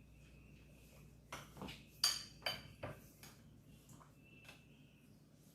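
A spoon clinking and scraping against a bowl as ground ogbono is stirred with palm oil, with a few irregular knocks, the sharpest about two seconds in.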